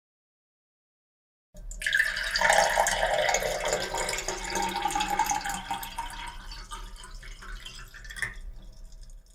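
Water being poured into a cup, starting abruptly about a second and a half in. It is loudest early on, tapers off gradually and stops near the end.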